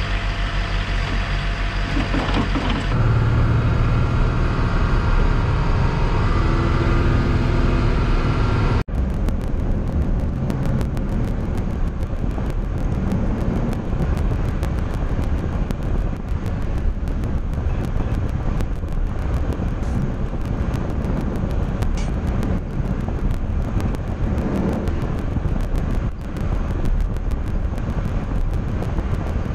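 Heavy diesel engine of an M1078 LMTV truck running steadily as it pushes snow with a Fisher V-plow. It follows a steady engine idle that grows louder about three seconds in and cuts off abruptly about nine seconds in.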